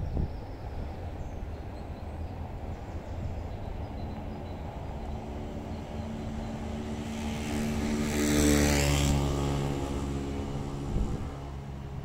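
A motor vehicle passes close by, its engine note swelling to a peak a little past halfway and then fading, over a low wind rumble on the microphone. A short thump comes near the end.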